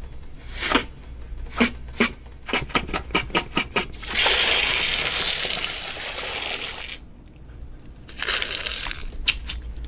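Beatboxed mouth sound effects for a cooking scene. A few sharp clicks come first, then a fast run of about six clicks a second. About four seconds in comes a steady hiss lasting about three seconds, and a shorter hiss follows near the end.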